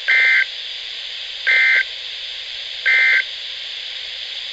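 NOAA Weather Radio's EAS end-of-message code: three short, loud two-tone data bursts starting about 1.4 s apart, over steady radio hiss. The bursts signal the end of the alert broadcast.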